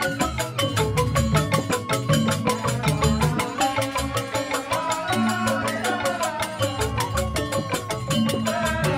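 Balinese joged bumbung gamelan: bamboo xylophones (grantang) playing fast, interlocking melodic patterns over a steady low beat.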